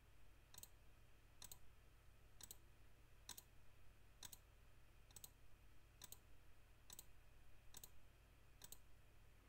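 Faint computer mouse-button clicks, about ten in a row at roughly one a second, as a button is clicked over and over.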